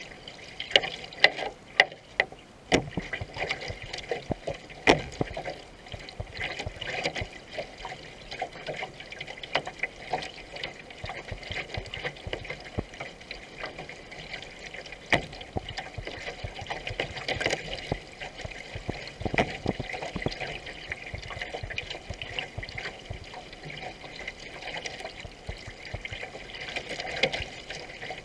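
Water splashing and gurgling around a racing canoe as it is paddled, with a steady wash along the hull and irregular sharper splashes and knocks, the loudest in the first few seconds.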